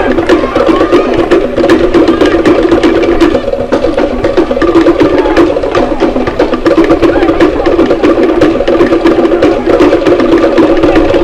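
Percussion music: fast, rhythmic strikes that sound like a wooden block or drum, over sustained tones, cutting off abruptly near the end.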